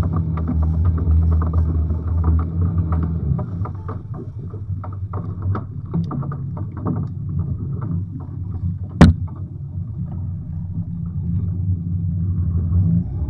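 Small fishing boat at sea, its engine running low and steady, with clicks and knocks as a prawn net is handled aboard and one sharp knock about nine seconds in.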